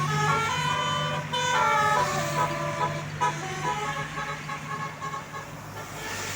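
Multi-tone 'telolet' bus horn playing a quick tune of changing notes over a bus engine's steady low hum, growing fainter in the second half.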